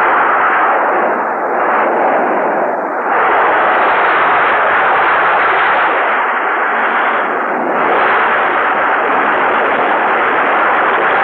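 Monster-film destruction sound effects: a loud, continuous rumbling roar of blasts running into one another, with a few brief dips and no clear single bang.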